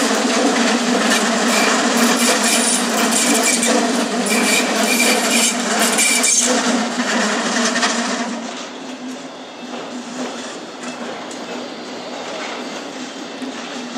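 Electric S-Bahn train running across the station's tracks and points: steady wheel-on-rail noise with a few brief high wheel squeals. About eight seconds in, as the train draws away, the sound drops noticeably and continues more quietly as a second, double-deck regional train rolls in.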